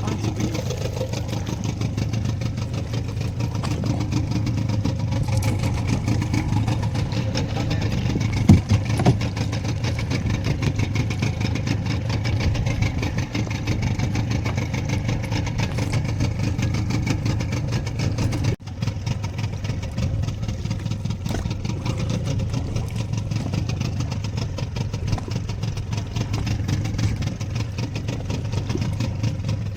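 Fishing boat's engine running steadily, with one sharp knock about eight seconds in.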